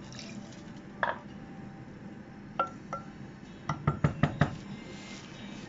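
A utensil clinking against a metal saucepan of curry, with short ringing knocks: one about a second in, two more near the middle, then a quick run of several clinks a little past halfway.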